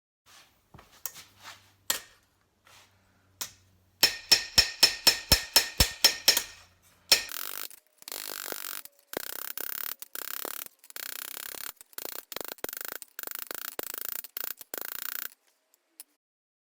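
Hammer blows ringing on hot steel and anvil while forging a knife blade, about a dozen strikes at roughly four a second. A few scattered taps come before them, and stretches of harsh hissing noise in short runs follow.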